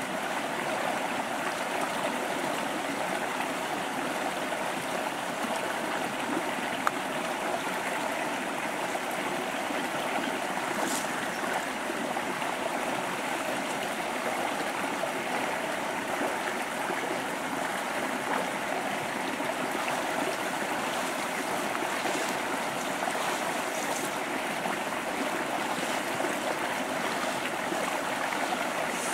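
River water flowing steadily, an even, unbroken sound of running water.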